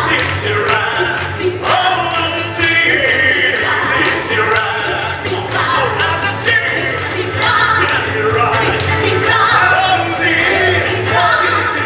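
Music with singing: voices singing a melody over a steady bass accompaniment.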